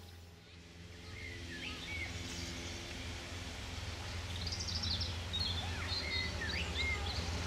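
Small birds chirping and singing over a low engine hum that grows slowly louder as a bus draws near.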